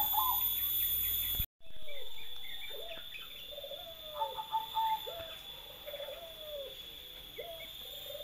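A dove cooing over and over, about one coo a second, with small birds chirping faintly; the sound cuts out briefly about a second and a half in, just before the cooing starts.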